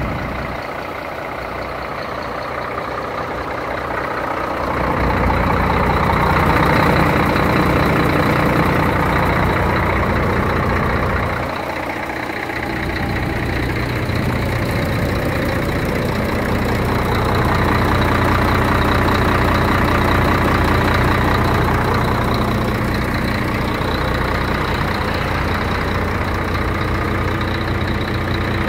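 Scania 114 G 380's straight-six diesel engine idling steadily, its level rising and falling as the sound is picked up from different points along the truck.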